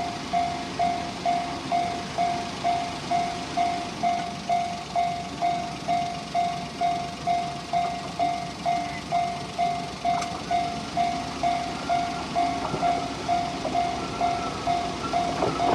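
Japanese level-crossing warning bell ringing, a single electronic ding repeated about twice a second, sounding for an approaching train. A fainter, higher sound of the oncoming train joins in during the last few seconds.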